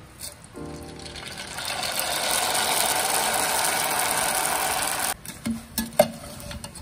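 Dry rice vermicelli (bihon) noodles sizzling hard in hot frying oil as they puff up, a loud crackling hiss that builds over the first couple of seconds and cuts off suddenly about five seconds in.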